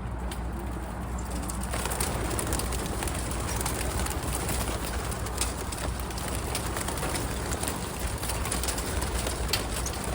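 A flock of racing pigeons released together, their many wingbeats making a dense flutter and clatter that swells about two seconds in and carries on.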